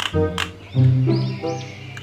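Upbeat background music with a regular beat and pitched instrument notes, with bird-like chirping sound effects over it.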